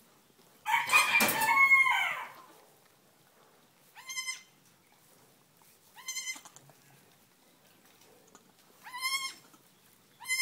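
Newborn Nigerian Dwarf goat kid bleating in short, high cries, four times. About a second in there is a louder, longer animal call lasting over a second.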